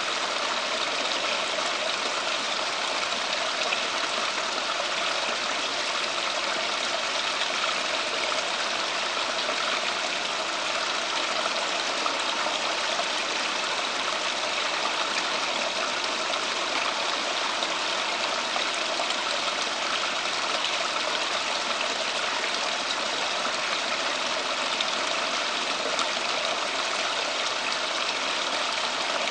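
Steady rush of running water from a garden water feature, even and unbroken.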